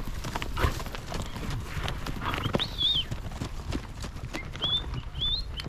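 Hoofbeats of a herd of horses trotting past on a gravel track, many irregular clops overlapping. Several short, high whistles come in over them in the second half.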